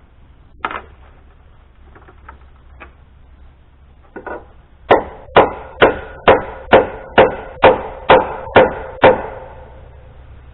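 A hammer driving a nail into wood: a light setting tap, then ten steady blows about two a second, after a single knock earlier on.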